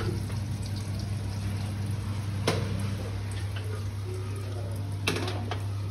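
Hot oil bubbling and sizzling faintly in a kadai on a gas burner, under a steady low hum. Two sharp clicks come through, one about halfway and one near the end.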